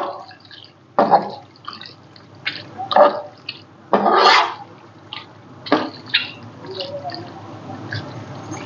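A spatula stirring and turning creamy macaroni in a frying pan, in irregular strokes about once a second.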